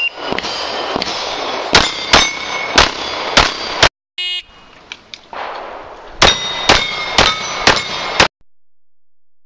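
Two quick strings of five shots each from a compensated 9mm Open race pistol, every shot followed by the ring of a steel plate being hit. A short electronic beep sounds about four seconds in, between the strings, and the sound cuts off abruptly after the tenth shot.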